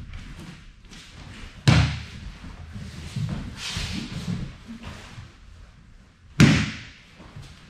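Bodies hitting tatami mats during an aikido nikajo pin: two loud thuds about five seconds apart, the first as the attacker is taken down onto the mat, with gi fabric rustling and softer knocks between them.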